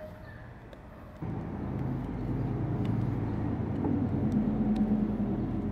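A steady low mechanical rumble with a droning hum starts suddenly about a second in and keeps on.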